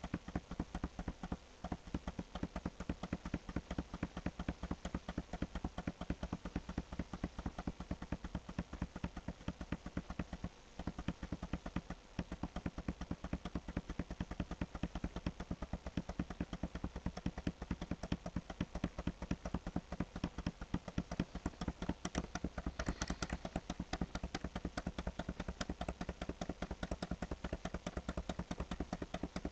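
Computer mouse clicked over and over in a rapid, steady run of sharp clicks, several a second, pausing briefly twice about ten and twelve seconds in. A low steady hum runs underneath.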